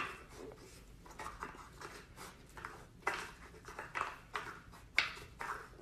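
Mini pig snuffling over a wooden puzzle feeder, searching for a hidden treat, with faint, irregular sniffs and light wooden clicks as its snout pushes the pieces.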